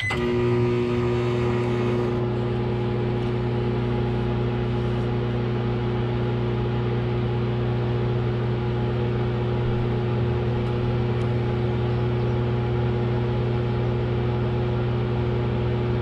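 Microwave oven running on high power from a van's inverter, a steady electrical hum that starts abruptly with a short beep and holds unchanged: the oven is working normally on inverter power.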